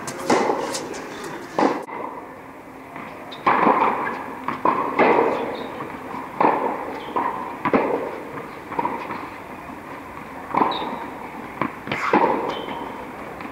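Tennis ball struck by rackets and bouncing on the court during a baseline rally: sharp pops about every second or second and a half, each with a short echo off the walls of a large indoor tennis hall.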